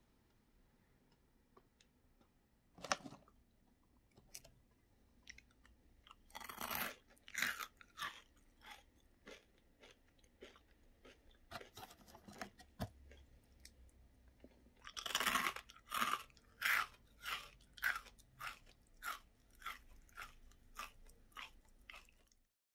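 Crisp fried shrimp-head snack being chewed, with short crunches coming about twice a second in the second half. The foil snack bag rustles as a hand reaches in for more.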